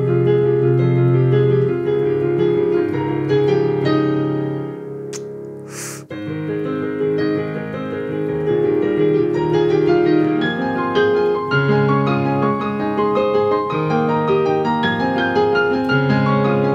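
Piano-led music with sustained keyboard chords; it dips about four seconds in, and a short rushing swoosh sounds about five to six seconds in before the music comes back in full.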